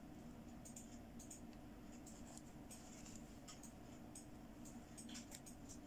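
Near silence broken by faint, scattered light clicks and ticks of plastic as a fashion doll is handled and its arms are posed, over a low steady hum.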